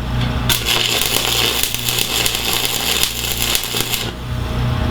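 Electric arc welder tack-welding a steel bracket: a steady crackling arc that starts about half a second in and cuts off after about three and a half seconds.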